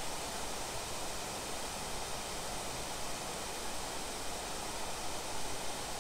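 Water pouring down a fountain cascade: a steady rushing hiss with no breaks.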